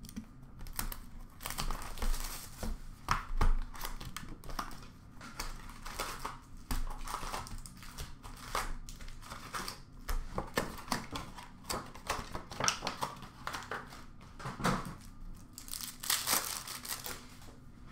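Plastic shrink wrap crinkling and tearing as sealed hockey card boxes are slit and unwrapped, then the cardboard box opened and its foil-wrapped packs handled, with irregular rustling and light clicks throughout.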